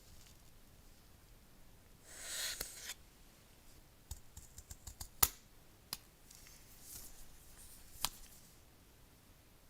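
Hands handling the packaging and device: a short rustle about two seconds in, then a run of small clicks and taps, with a sharp click about five seconds in and another near the end.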